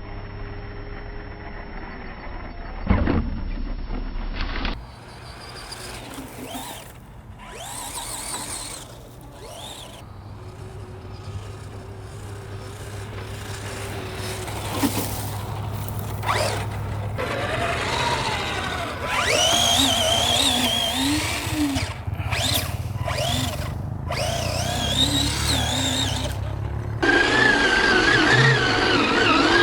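Electric motor of an Arrma Fury 2WD brushed RC truck whining, its pitch rising and falling with the throttle, with a few sharp knocks, in several clips cut together.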